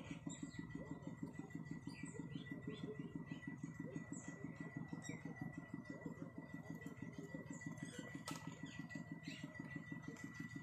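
A small engine running steadily with a fast, even pulse, with a thin steady high tone and scattered short chirps over it.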